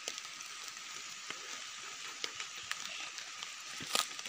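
Footsteps and rustling on dry leaf litter over a steady high hiss, with scattered small crackles and a sharper snap about four seconds in.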